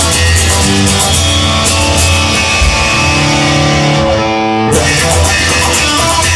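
Rock music with guitar over bass and drums; a little after four seconds in, the drums drop out for about half a second, leaving held guitar notes, then the full band comes back.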